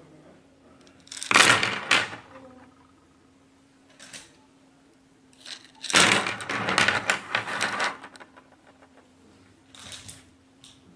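Handfuls of wooden pencils dropped onto a pile on a tabletop, clattering against one another: a short burst of clatter about a second in, a longer and louder one from about six to eight seconds, and a few lighter clicks between.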